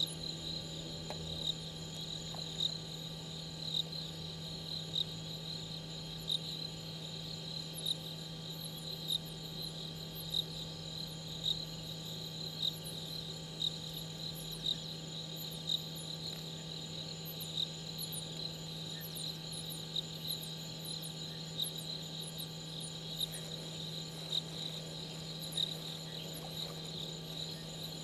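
Night chorus of crickets trilling steadily at a high pitch, with one louder chirp repeating about every second and a quarter and faint, quick, very high chirps above it. A steady low hum runs underneath.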